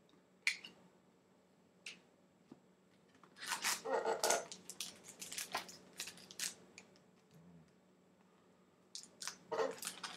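Crinkling and tearing of a foil trading card pack wrapper as it is opened. Two sharp clicks come in the first couple of seconds, then a spell of crackling from about three and a half to six and a half seconds in, and more near the end.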